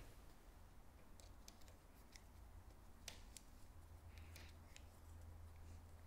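Faint, scattered small clicks and taps from a Shimano Dura-Ace 9000 rear derailleur cage as new Tacx ceramic jockey wheels are handled and fitted into it by hand, over a low steady hum.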